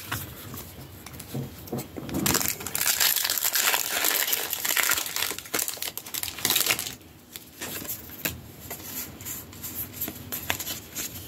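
Foil booster-pack wrapper crinkling and tearing as a Pokémon trading card pack is opened, loudest from about two seconds in to about seven seconds, then softer crackles and rustles.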